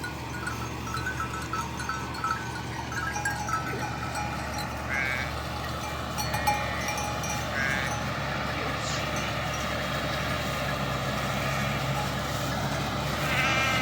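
Sheep bleating in short calls, four or so, with bells clinking on the flock, over a steady low hum.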